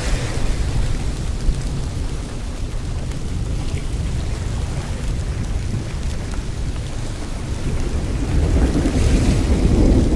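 Rain and thunder ambience: a steady deep rumble under an even hiss of rain, swelling louder near the end.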